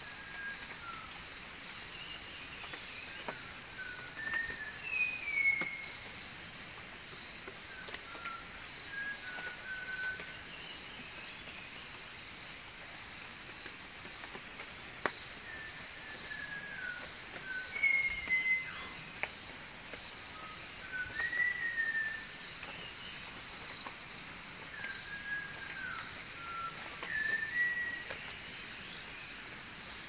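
Malabar whistling thrush singing: short phrases of gliding whistles coming every few seconds, over an insect chirping steadily at about two pulses a second.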